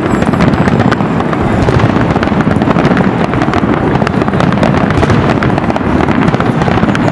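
Aerial fireworks display: a dense, continuous barrage of pops and booms from many shells bursting at once, with no break.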